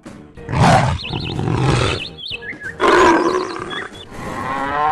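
Elephant calling: two loud, harsh roaring blasts about two seconds apart.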